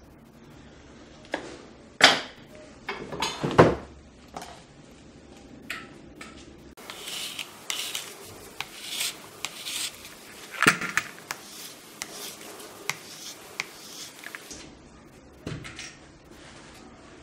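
Hand tools working a leather sole on a bench board: a few sharp knocks and clatters, then a run of irregular scraping strokes as an abrasive strip is drawn over the leather, ending with another knock.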